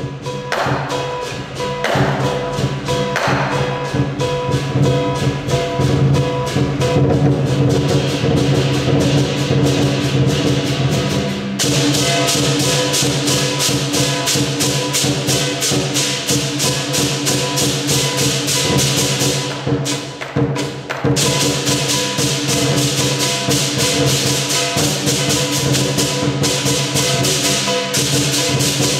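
Chinese lion dance percussion: a large drum beaten in rapid strokes under clashing cymbals. The cymbals grow louder about a third of the way through, break off briefly twice about two-thirds of the way in, and the music dies away at the very end.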